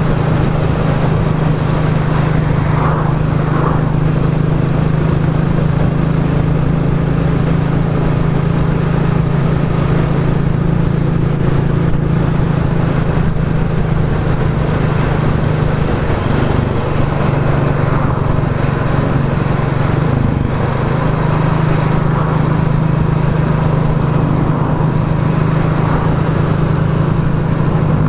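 Royal Enfield Classic 350's single-cylinder engine running through a Hitchcock's de-cat exhaust pipe, holding a steady, unchanging note as the bike is ridden.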